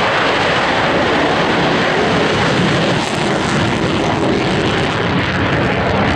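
F-35B's Pratt & Whitney F135 jet engine running at high power, a loud, steady rush of noise that eases a little about halfway through.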